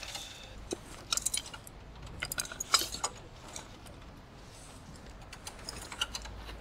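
Scattered light metallic clicks and clinks of hand tools being handled and rummaged through, a few small knocks at a time with short pauses between.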